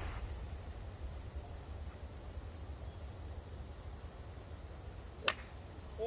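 A golf club striking the ball off the tee: one sharp crack about five seconds in, a well-struck shot. Behind it, crickets chirr with a steady high tone, and wind rumbles low on the microphone.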